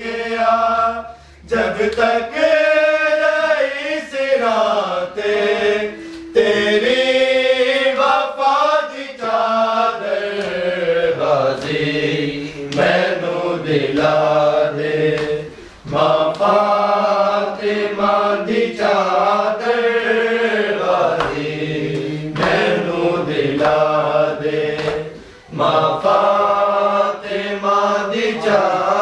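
Men's voices chanting a mournful Punjabi noha (lament) in long sung phrases with short breaks between them.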